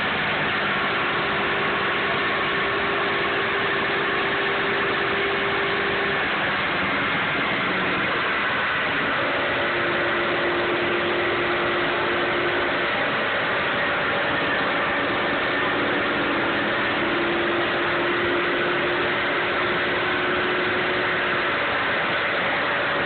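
C6 Corvette's V8 running at a steady speed on a chassis dyno, under a constant loud rush of noise. The engine pitch holds level, shifting slightly a few times, with no rev-up.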